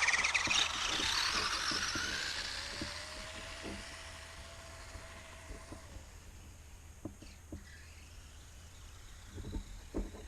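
Electric motor of a radio-controlled mud truck whining under throttle, fading away over the first few seconds. After that come faint, scattered clicks.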